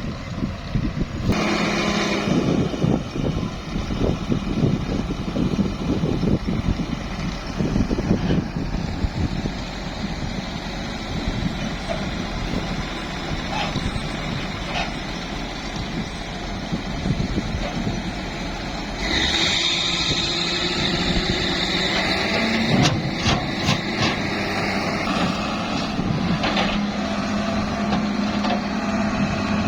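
Diesel engines of a mini excavator and a dump truck running steadily, with scattered knocks and clanks. A hiss joins in from about two-thirds of the way through and lasts several seconds.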